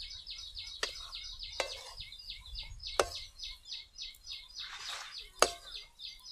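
Steel spoon stirring a thick vegetable mixture in a steel pan, clinking sharply against the pan a few times. Behind it, birds chirp in a rapid, even run.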